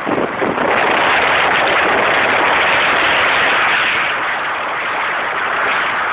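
Small motorboat with a 70 hp Volvo Penta 700 motor running steadily at speed, mixed with heavy wind buffeting on the microphone.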